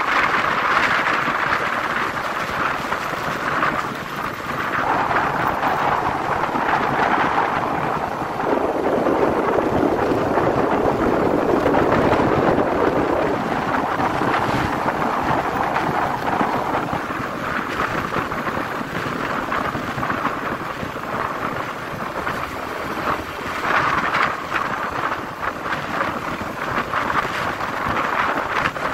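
Wind rushing over the microphone of a motorcycle riding at highway speed, mixed with road and traffic noise. The rushing swells and fades, heaviest and lower-pitched about a third of the way in.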